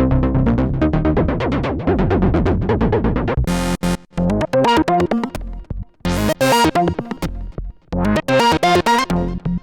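Roland SE-02 analog monophonic synthesizer playing a fast sequenced pattern of repeated notes. About three and a half seconds in, the pattern turns choppy, with short bursts of brighter notes separated by gaps.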